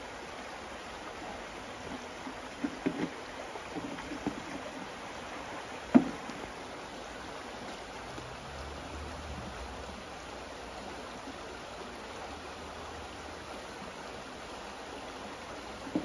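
Shallow rocky stream running steadily, with a few splashes and knocks from someone wading in rubber boots and handling a plastic bucket: a cluster of them two to four seconds in and one sharper knock at about six seconds.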